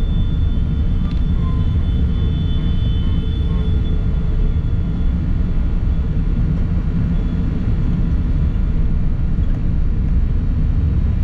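Steady low rumble of engine and road noise from a moving vehicle, with no pauses. A faint high whine fades out about four seconds in.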